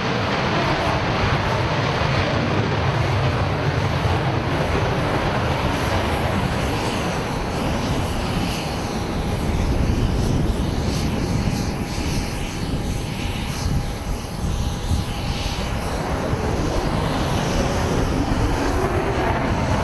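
Twin jet engines of a Chengdu J-20 stealth fighter running at high power through a takeoff: loud, steady jet noise, with a faint steady whine through the middle.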